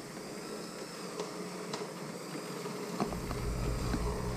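Electric hand mixer running, its beaters whipping softened butter and confectioner's sugar in a plastic bowl, with a steady buzzing hum and faint ticks of the beaters against the bowl. About three seconds in the sound grows louder and deeper.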